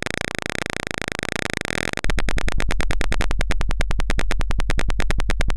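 Electronic alarm buzzer of a simulated Arduino fire alarm sounding: a steady high beep for about two seconds, then a rapid, even stuttering buzz of about ten pulses a second.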